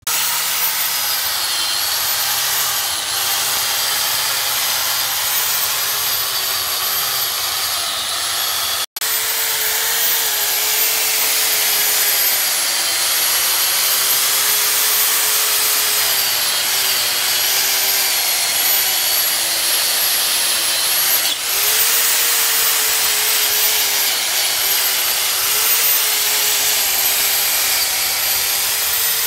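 Corded angle grinder with a wire wheel running continuously, scrubbing rust and grime off a van's brake caliper carrier and hub. Its motor pitch wavers and dips briefly as the wheel is pressed into the metal, and the sound cuts out for an instant about nine seconds in.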